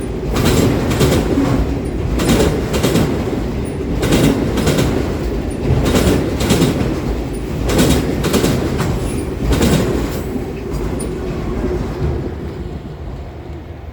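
Canadian Pacific train cars rolling past, their wheels clacking over rail joints in paired clicks about every two seconds over a steady rumble. The sound fades near the end as the train moves off.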